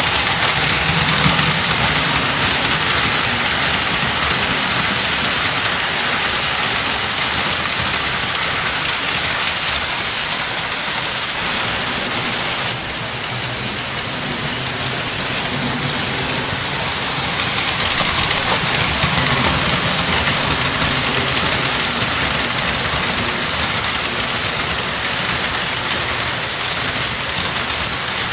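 O-gauge three-rail toy trains running on the layout: a steady metallic rolling hiss from the wheels on the track, with a faint low hum from the motors underneath. It eases off slightly about halfway through.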